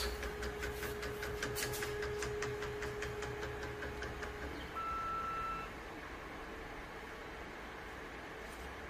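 Creality CR-10 S5 3D printer's stepper motors whining steadily as the print head moves to the next bed-levelling point, stopping about four and a half seconds in. A short electronic beep follows about five seconds in.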